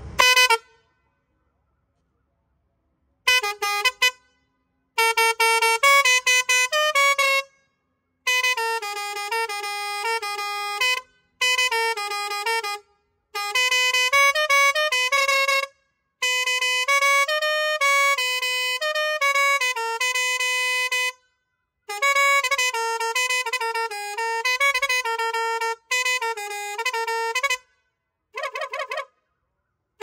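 Multi-tone musical air horn playing several short tunes, each a quick run of loud stepping notes, in about ten bursts separated by brief pauses.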